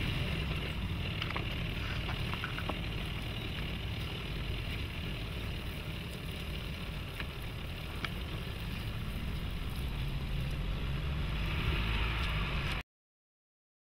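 Nissan Navara's 2.3-litre twin-turbo diesel engine running low and steady as the pickup crawls along a side slope, with outdoor noise over it. The sound cuts off suddenly near the end.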